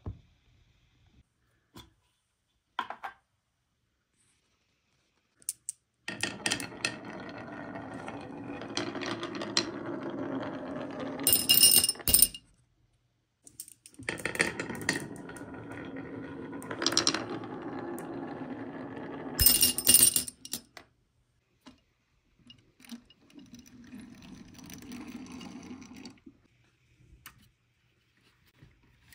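Glass marbles rolling down a wooden zigzag slope, twice: each run is a steady rumble of about six seconds that ends in a burst of sharp clinks as the marble drops into a die-cast metal toy dump truck. A fainter rolling rumble follows near the end.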